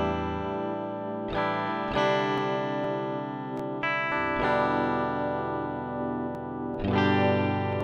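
Slow guitar music: chords struck and left to ring out, with a new chord every second or two.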